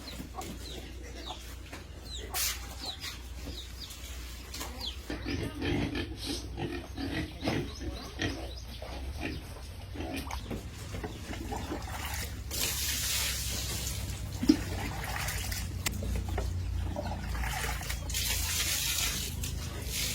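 Pigs grunting, with several stretches of hissing, rushing noise in the second half.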